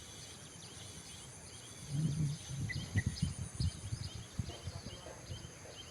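Outdoor ambience of insects and birds: a steady high buzz with short chirps repeating throughout. From about two seconds in there is a spell of low rumbling and thumps.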